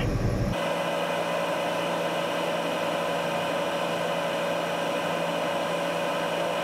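A 20-tonne crane's engine heard from inside the cab, sped up about five times into a steady high-pitched hum over a hiss, with its low rumble gone. It switches in abruptly about half a second in.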